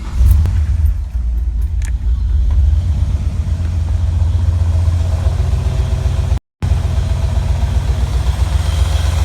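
Mazda RX-7's rotary engine running with a rapid, uneven pulsing: the engine knock in question. The sound cuts out completely for a moment about six and a half seconds in.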